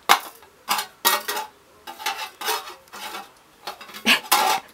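Plastic cotton swabs rattling and clicking in a clear plastic cotton-swab container as it is shaken and knocked about, in several short bursts of clatter.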